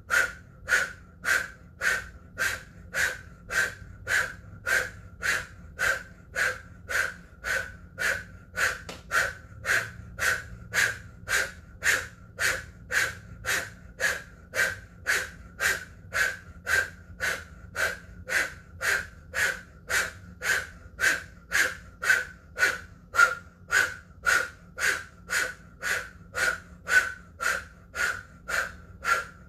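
Forceful rhythmic breathing through a rounded, open mouth: the steady pumping breath of Kundalini yoga's Fists of Anger kriya. The sharp breaths come evenly, nearly two a second, without a break.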